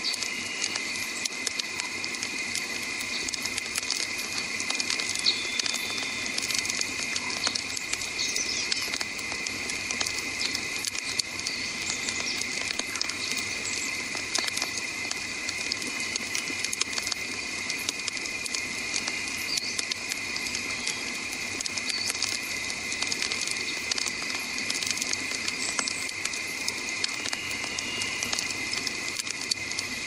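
Wood campfire burning, with frequent small crackles and pops from the logs over a steady hiss, and a steady high-pitched drone underneath.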